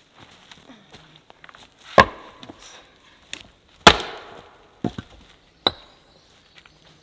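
Axes splitting firewood rounds on a chopping block: two loud chopping strikes about two seconds apart, the second the loudest, then a few lighter knocks of wood.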